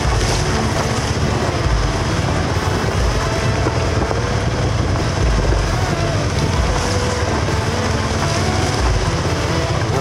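Off-road motorcycle engine running on the move, its pitch rising and falling with the revs, under heavy wind noise on the microphone.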